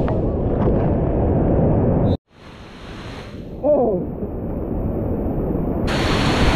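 Loud rushing whitewater of a river rapid. About two seconds in the sound drops out for a moment, then comes back dull and muffled with a short gurgle, and clears to the full rush near the end.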